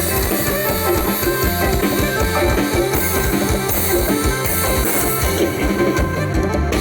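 Music with a drum kit and guitar over a steady beat.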